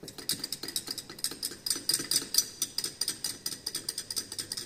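Glass beaker of titration solution swirled by hand, the electrodes and glass salt-bridge tube clinking against its glass in rapid light ticks, about eight a second. This mixes in the drops of titrant just added.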